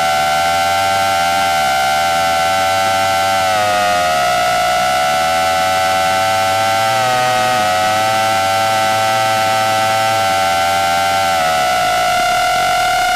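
Krakatoa 5 FPV quadcopter's motors whining steadily, several close pitches beating together. The pitch wavers and dips briefly a few times as the throttle shifts in flight.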